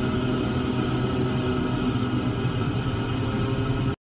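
Cessna 340's twin turbocharged six-cylinder piston engines running at low power while taxiing in to park, heard from inside the cabin as a steady drone. The sound cuts off abruptly near the end.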